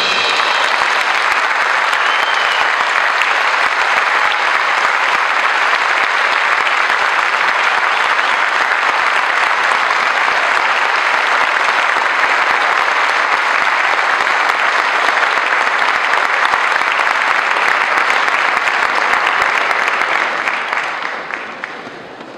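Audience applauding steadily in a concert hall, dying away about twenty seconds in.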